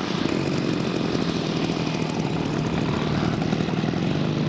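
Engine of a radio-controlled scale warbird running steadily at low throttle as the model lands and rolls along the runway, with a steady low engine note.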